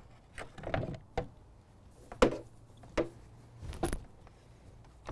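A few separate clicks and knocks from a plunge track saw being handled on its aluminium guide rail, the loudest a little over two seconds in; the saw's motor is not running.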